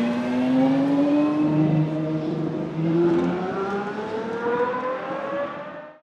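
Aston Martin 6.0-litre V12 of a Lola-Aston Martin B09/60 LMP1 race car accelerating, its note climbing steadily in pitch for about six seconds. The sound then cuts off suddenly near the end.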